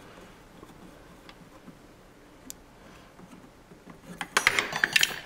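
Quiet room tone with a few faint ticks, then about four seconds in a quick cluster of sharp metal-on-plastic clicks and rattles lasting under a second, from an Allen wrench working the set screw of the selector valve's plastic knob.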